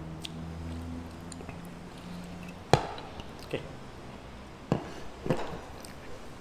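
Eating sounds close to the microphone: chicken being handled and chewed at the table, with four sharp clicks and knocks against the plates, the loudest a little under three seconds in.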